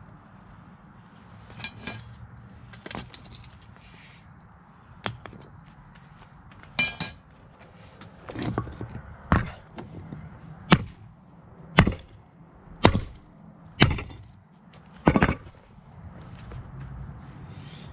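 A metal ingot mold being knocked against concrete blocks to free a stuck cast-aluminium ingot. A few lighter knocks come first, then six sharp, loud knocks about one a second.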